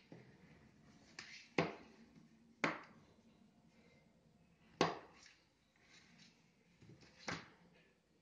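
Plastic drip-irrigation tubing and fittings being handled on a tabletop: four sharp knocks and clacks a second or two apart, with soft handling noise between.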